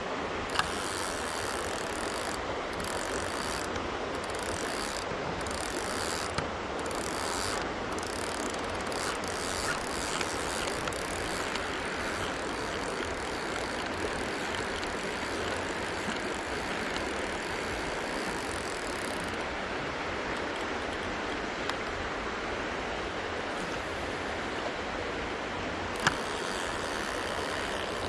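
Mountain stream rushing steadily, with the ratcheting whir of a spinning reel being cranked as a lure is retrieved. Two sharp clicks stand out, one just after the start and one near the end.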